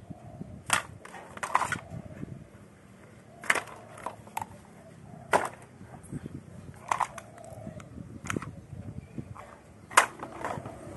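Hard objects knocking and clacking: about eight sharp knocks at irregular intervals over a low rumble, the loudest near the end.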